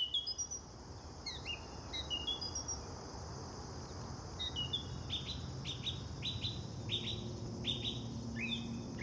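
Small birds chirping outdoors: short falling notes early on, then a quick run of sharp chirps about five to seven seconds in. Under them runs a steady high-pitched drone of insects.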